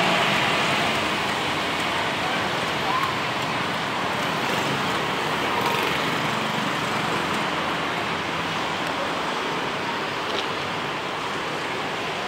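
Steady hiss of city traffic and street ambience with no distinct events.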